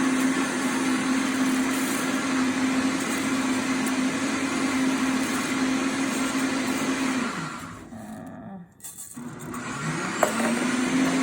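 Electric countertop blender motor running steadily, grinding a wet green masala paste with whole seeds. About seven seconds in it is switched off and winds down, then it starts again and spins back up near the end.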